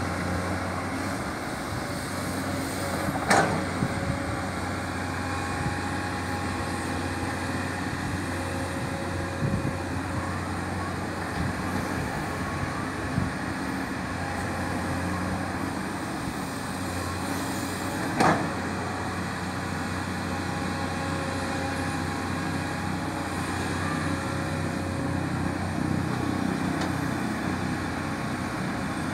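Komatsu PC210 hydraulic excavator's diesel engine running steadily under load while it digs soil, with two sharp knocks, one about three seconds in and another around eighteen seconds.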